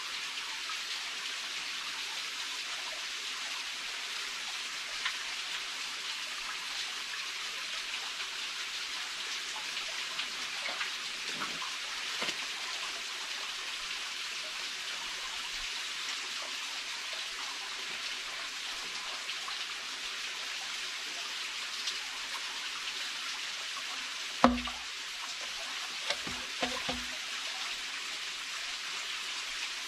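Small forest stream flowing steadily, a constant rush of water with faint scattered ticks. Near the end there is one sharp thump, followed by two softer knocks a couple of seconds later.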